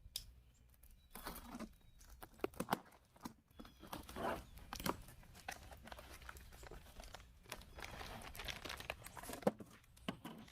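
Packaging crinkling, rustling and tearing in irregular handling noises as a boxed battery is unwrapped.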